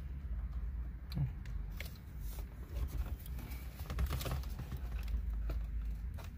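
Hands rummaging through a bundle of wires and plastic connectors at the back of a car stereo unit: scattered rustles and light clicks over a steady low hum.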